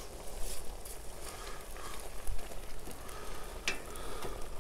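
Rice simmering in a steaming cast-iron kazan, with a slotted metal skimmer spreading and stirring the wet grains; a sharp clink of the skimmer about three and a half seconds in.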